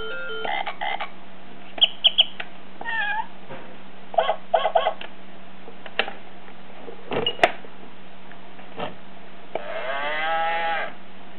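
Electronic animal-sounds toy playing short recorded animal calls through its small speaker, one after another as its buttons are pressed. The longest, a sliding call, comes near the end. A steady low electrical hum runs underneath.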